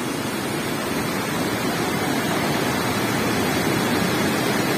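Fast-flowing river rushing over rocks: a steady noise of water that grows a little louder.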